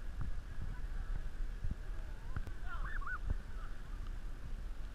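Water lapping and knocking against a kayak's hull close to the camera. A few short bird calls, each rising and falling in pitch, come about two and a half to three seconds in.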